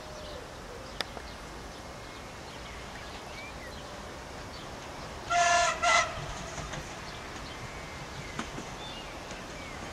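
Horn of an approaching regional diesel multiple unit sounding twice about five seconds in: a half-second blast and a short one right after, over a low background hum.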